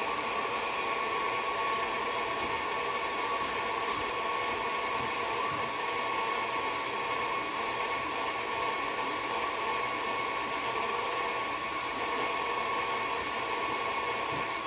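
KitchenAid tilt-head stand mixer running steadily, its beater whipping butter in the stainless steel bowl. The motor gives an even whine at one constant pitch over a noisy hum.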